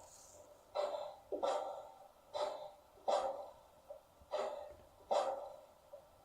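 Steam exhaust chuffs from the sound decoder of an LGB G-scale model of the Saxon I K narrow-gauge tank locomotive, played through its small built-in loudspeaker. About six sharp beats come at roughly one and a half a second, each fading away, with a lighter click between some of them.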